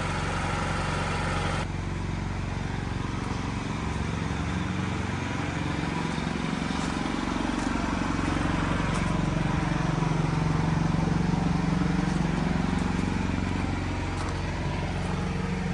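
Standby backup generator engine running steadily under load while powering the building, with its cooling system running. A brighter hiss over the hum cuts off suddenly about a second and a half in.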